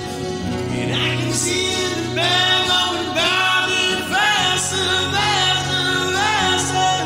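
Acoustic guitar strumming under a man's wordless singing: a high, wavering held vocal line that comes in about a second in and runs in several swooping phrases.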